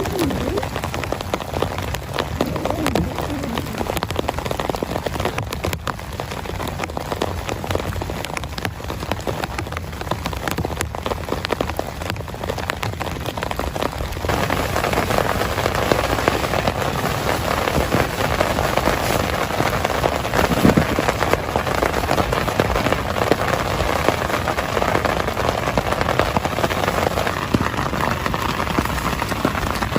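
Heavy rain falling, with many separate drop impacts, growing louder about halfway through.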